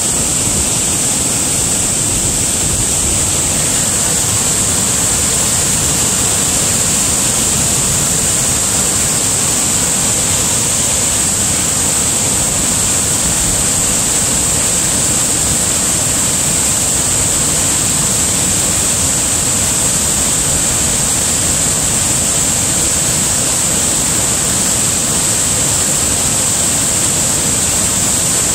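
Waterfall at high spring-runoff flow: a steady, loud rush of whitewater pouring over rock ledges.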